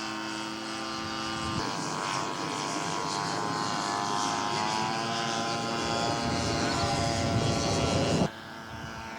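Radio-controlled scale model Vickers Gun Bus engine and propeller running in a fly-past, the pitch bending slightly as it passes. It gets louder about a second and a half in, then drops suddenly near the end to a fainter engine sound.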